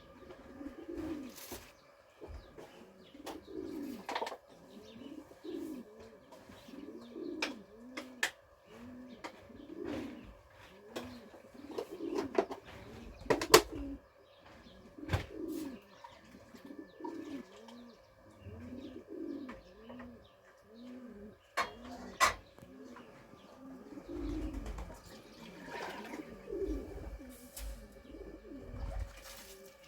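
Pigeons cooing over and over, about one coo a second, with a few sharp clicks or knocks, the loudest about halfway through.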